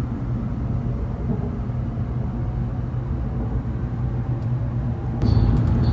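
Steady low rumble of a Shinkansen bullet train's cabin while the train runs, jumping louder about five seconds in.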